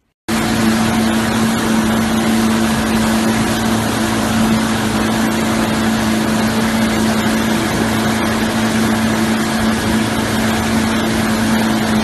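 Motorboat engine running steadily at speed, a constant low hum under the rush of water and wind, starting abruptly just after the beginning.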